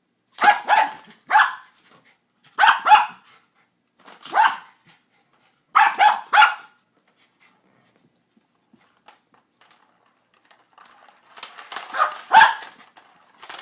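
Dog barking in short bursts of one to three barks, about ten barks in all, at a cat toy whose ball is stuck out of his reach. After a pause, scuffling and rattling noise comes in near the end, with one more bark.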